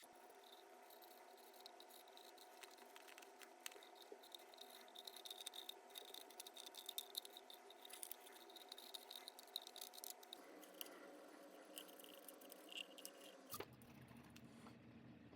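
Near silence: faint room tone with scattered small clicks and taps.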